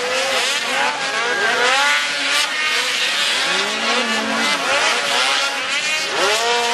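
Several racing engines revving hard, their pitch climbing and dropping over and over as the vehicles accelerate and slow through tight turns, overlapping one another over a steady hiss.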